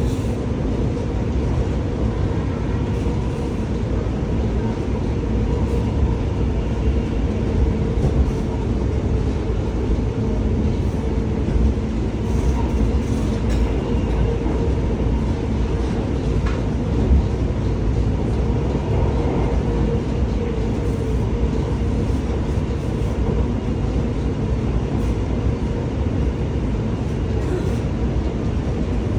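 Alstom Movia R151 metro train running between stations, heard from inside the car: a steady rumble of wheels on rail with a constant hum.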